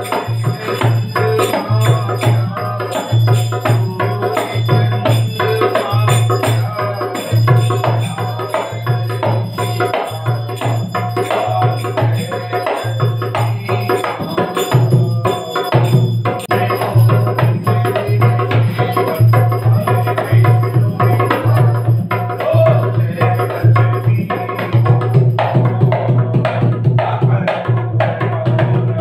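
Devotional aarti music with steady rhythmic percussion: a jingling tambourine-like beat over a hand drum, with a strong pulsing bass line.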